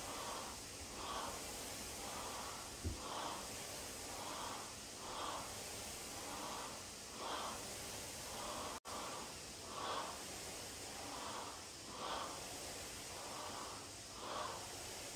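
Heavy, rhythmic breathing of a person exerting herself during a dumbbell workout, about one breath a second. There is a single dull thud about three seconds in.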